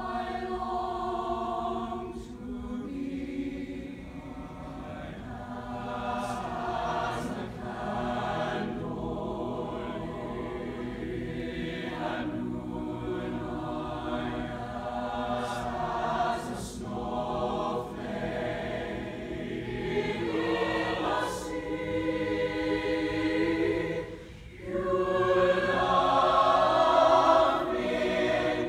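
Mixed high school concert choir singing sustained chords, with a brief break about two-thirds of the way through and louder singing toward the end.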